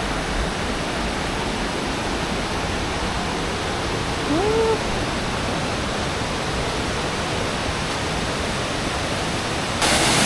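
Waterfall rushing steadily. About four seconds in, a short rising call is heard over it, and near the end the rush suddenly turns louder and brighter.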